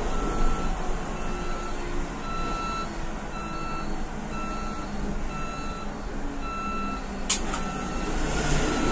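A short electronic warning beep repeating about once a second inside the cab of an electric bus, over its steady drive hum and road noise. Two sharp clicks come about seven seconds in.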